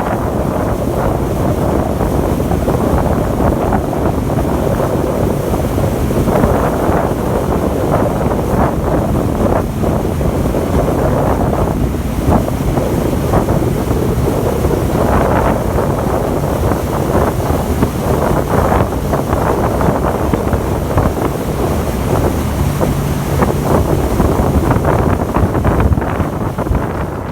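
Loud, steady wind buffeting the microphone aboard a moving boat, with rushing water beneath.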